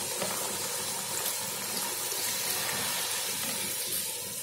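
Thin coconut-milk sauce sizzling and bubbling steadily in a wok around tofu and fish, easing off slightly near the end.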